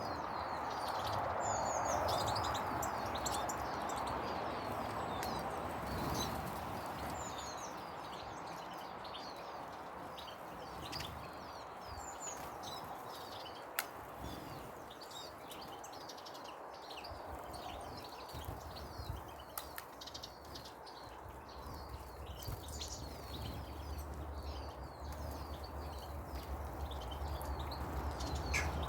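Many small garden birds chirping and twittering over a steady background hiss, with one sharp click about halfway through.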